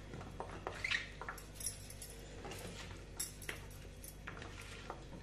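Hands tossing cornflour-coated raw potato sticks on a steel plate: faint, scattered clicks and taps of the sticks against each other and the metal.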